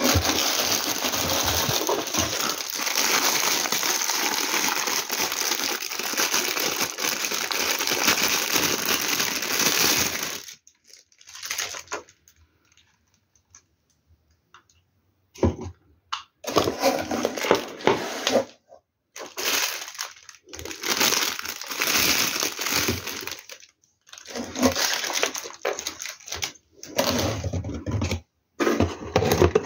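Packaging rustling and crinkling as hands rummage in a cardboard box among plastic-wrapped parts: a continuous rustle for about ten seconds, a quiet pause, then shorter bursts of handling noise.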